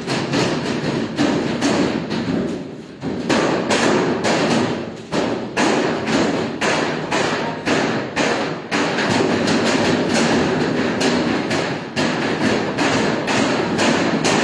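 Noodle dough being kneaded by hand on a stainless steel worktable, giving repeated dull thuds about two a second, unevenly spaced, over a busy room background.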